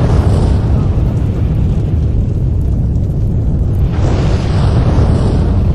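Artificial volcano eruption show: a loud, steady low rumble, with a rushing hiss that swells in about four seconds in.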